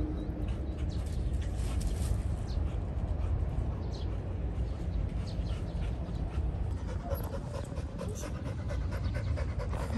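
A dog panting quickly and rhythmically, most clearly from about seven seconds in, over a steady low wind rumble on the microphone.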